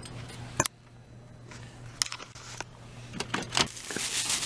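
Sharp clicks of a car door being opened and handled, one about half a second in and another about two seconds in, then a thin plastic shopping bag crinkling as it is lifted out near the end.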